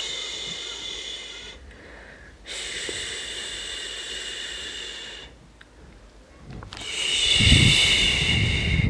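A cat urinating into tofu cat litter: a steady hissing stream in three spells of two to three seconds each, with rubbing and handling noise under the last one.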